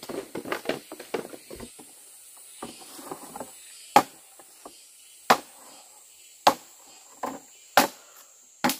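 Wood being chopped by hand: clusters of small, quick knocks and cracks at first, then five sharp blows about a second and a quarter apart.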